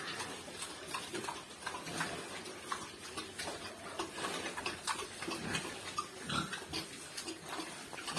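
A litter of F1 crossbred piglets grunting in short, irregular sounds.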